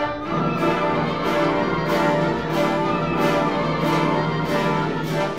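Orchestral background music with a steady beat.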